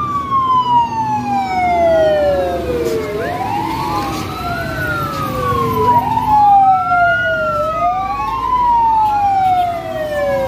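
Fire truck sirens wailing as a convoy of fire trucks approaches. Each siren sweeps slowly down in pitch over about two and a half seconds, then rises quickly and repeats. Several sirens overlap out of step, with the trucks' engines running underneath.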